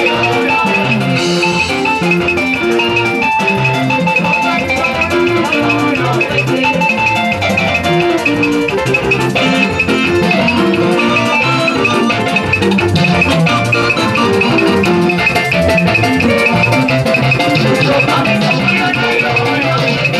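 Loud, upbeat dance music with a steady beat: pitched instrument lines over drums and shaken percussion.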